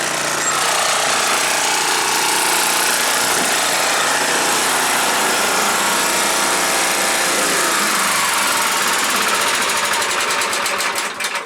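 1987 Honda lawn mower engine running steadily at mowing speed, then shut off near the end, its firing pulses slowing as it winds down.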